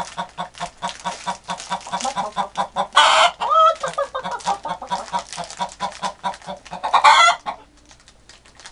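Broody hen clucking rapidly and steadily, with two loud harsh squawks about three and seven seconds in, then falling quiet near the end: a sitting hen's agitated warning at being disturbed on her nest.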